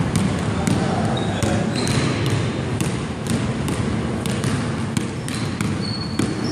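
Basketball dribbled on a hardwood gym floor: a steady run of bounces, about three a second.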